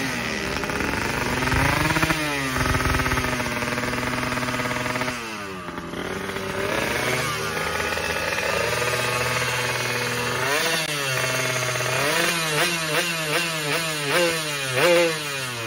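Two-stroke underbone race motorcycle engine with an expansion-chamber exhaust being revved: the revs rise and fall and hold for stretches, then turn to a series of quick, sharp throttle blips in the second half.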